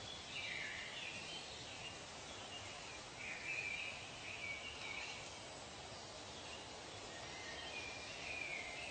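Nature ambience: birds calling on and off in short phrases, one call dropping in pitch about half a second in, over a steady background hiss.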